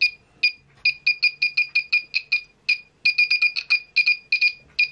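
Homemade earthquake alarm's buzzer giving short, uneven high-pitched beeps, about twenty of them with brief pauses, each time the hanging weight swings against its wire ring as the stand is shaken.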